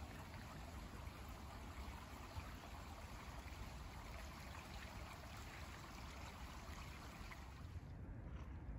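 Small woodland creek flowing with a faint, steady trickle. The water sound drops away near the end, leaving only a low rumble.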